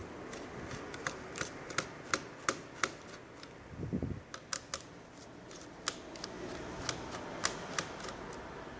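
Quick, irregular clicks and taps from small hard parts of a netbook being handled during disassembly, with a duller bump about four seconds in.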